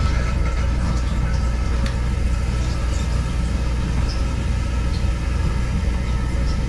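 A toilet tank filling through its fill valve just after the supply shut-off valve is opened: a steady rush and hiss of running water with a low hum underneath.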